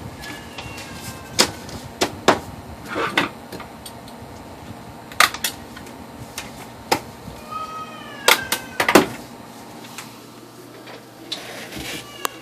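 OKI MB480 laser multifunction printer clacking and knocking, about eight sharp clacks spread irregularly, with two short falling squeaks.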